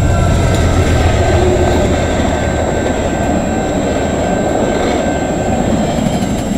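VIA Rail passenger train passing close by: the GE P42DC diesel locomotive's engine rumbling as it goes past at the start, then the steady rumble and clatter of the passenger coaches' wheels on the rails.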